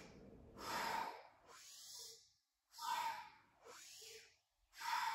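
A woman breathing deeply in and out through the nose in a chest-filling 'warrior's breath', three full breaths about two seconds apart, each a louder rush of air followed by a softer one.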